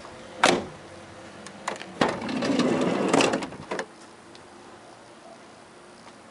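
Citroën Berlingo's sliding side door being opened: a sharp latch click about half a second in, then the door running back along its runner for about two seconds, with a couple of knocks as it reaches the end of its travel.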